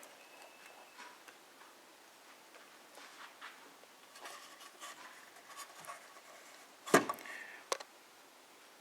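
Faint handling sounds of objects being moved, then a sharp knock about seven seconds in and a lighter click just after.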